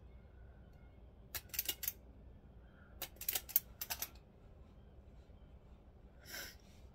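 Wiring and small parts being handled: a run of sharp light clicks and taps in two quick clusters, then a short soft rustle near the end.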